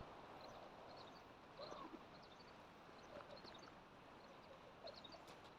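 Near silence: quiet outdoor ambience with faint, scattered high chirps.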